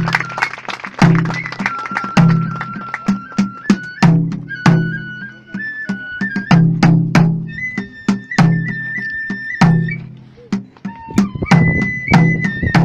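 Kagura festival music: a Japanese transverse flute holding long high notes that step upward in pitch, over rapid, driving drum beats and sharp clicking strikes.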